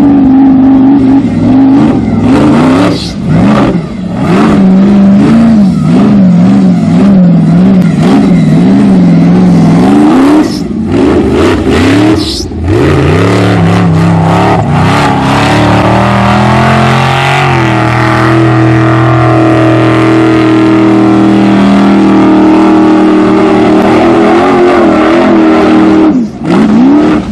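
Formula Offroad hill-climb car's engine revving at full throttle on a steep sand slope, its pitch wavering rapidly up and down. It cuts out briefly several times, then holds a steadier high note through the second half.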